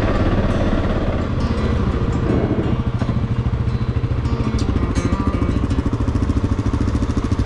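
Adventure motorcycle engine running at low revs as the bike rolls slowly along a gravel track, with a fast, even exhaust pulse and a few light clicks.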